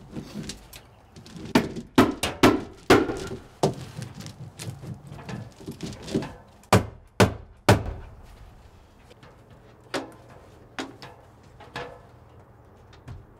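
A run of irregular knocks and thunks, the loudest cluster between about two and eight seconds in, then a few fainter ones, as a window unit is handled and lifted into its rough opening.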